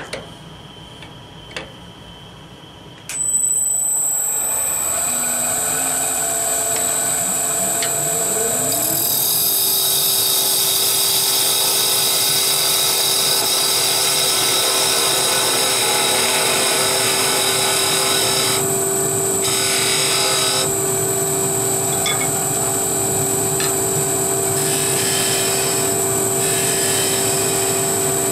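Wood lathe switched on after a couple of small clicks, about three seconds in, then running with a steady high whine; a lower tone rises in pitch at about eight seconds and holds. A turning chisel scrapes and cuts the small spinning wooden blank for a top's body, its hiss varying as the cut goes on.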